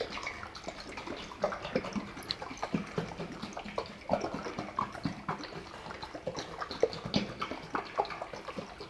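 Buttermilk dressing sloshing inside a sealed Consol glass jar shaken by hand, in quick, irregular splashes.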